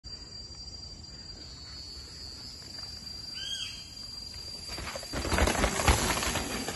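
A mountain bike rolls down a rocky, leaf-strewn trail and passes close by. Its tyres crunch and the bike rattles and knocks over the rocks, starting about five seconds in and loudest about a second later. Before that there is only a quiet outdoor background with a short call about three and a half seconds in.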